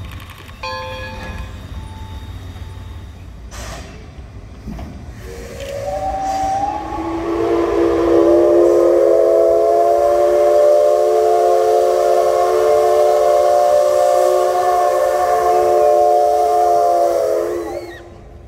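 Steam whistle of the JNR Class C56 steam locomotive No. 160 blowing one long blast, a chord of several tones that slides up in pitch as it opens, holds steady for about twelve seconds, and drops away near the end. A few seconds of hiss come before it.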